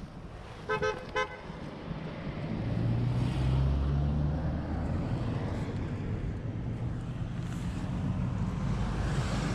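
Two short horn toots about a second in, then a passing vehicle's engine swells in, loudest about three to five seconds in, over steady road traffic noise.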